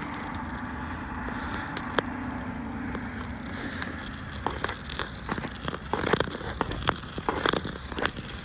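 Ice skates on pond ice: a steady gliding hiss for about the first four and a half seconds, then a run of short scrapes, clicks and knocks as blades dig and strike the ice.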